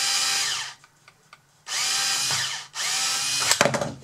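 Small cordless electric screwdriver running in three short spells with brief pauses between, driving the track-tensioner screw of a 1:16 model bulldozer and tightening the track, followed by a few sharp knocks near the end.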